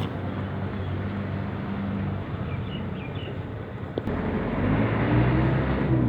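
An engine running steadily. About four seconds in it gets louder and its pitch rises and wavers, as if revving or drawing nearer.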